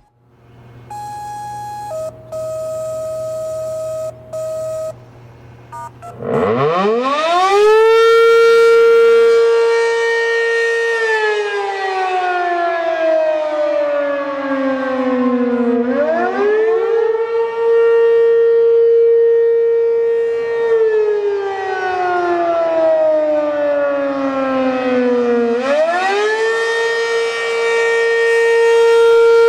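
A few seconds of steady electronic tones, then an ACA P-15 single-tone rotating outdoor warning siren (460 Hz) starts about six seconds in. It winds up to a steady tone, holds it for a few seconds, falls to about half pitch and winds back up again, twice: the attack signal. Its loudness swells and dips as the 3 RPM rotor turns the horn toward and away from the listener.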